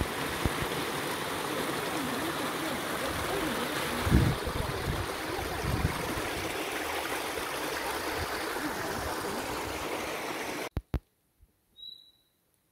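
Small mountain stream running over rocks and spilling down a little cascade, a steady rush of water. It cuts off suddenly near the end, and a single short high bird chirp follows.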